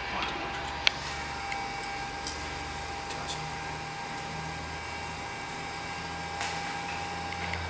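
Steady fan whir and hum of a running infrared BGA rework station, with a thin steady whine. A few light clicks come at about one, two and three seconds in.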